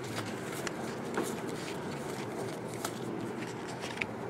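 Baseball trading cards being flipped through by hand: a few faint, scattered ticks of card edges over a steady room hum.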